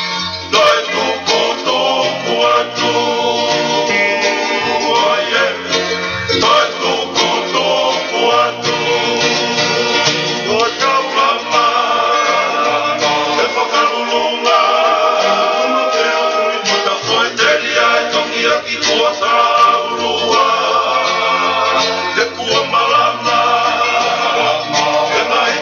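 A Tongan song: voices singing over guitar accompaniment.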